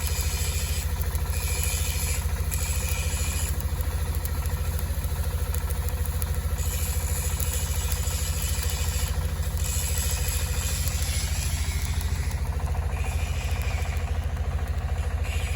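An engine running steadily at constant speed, with a higher hiss that comes and goes every second or two.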